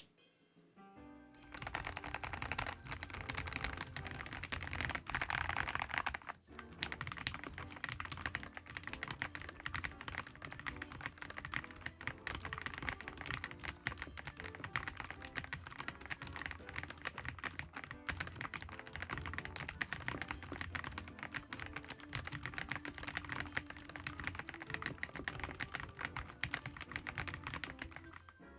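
Fast continuous typing on a Dustsilver D95 mechanical keyboard, a dense stream of key clacks starting about a second in, with a brief pause partway through. Background music plays underneath.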